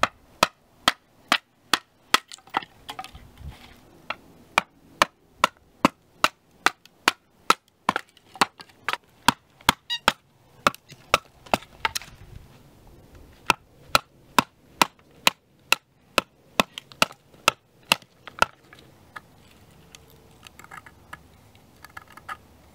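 Wooden baton striking the spine of a Schrade SCHF42 fixed-blade knife, about two sharp knocks a second, batoning the blade down through a standing stick to split it. The knocks pause briefly partway through and stop a few seconds before the end.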